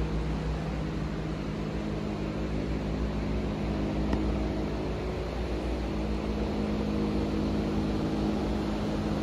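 Steady mechanical hum of building machinery, like ventilation fans, holding several low tones that never change pitch, with a single faint click about four seconds in.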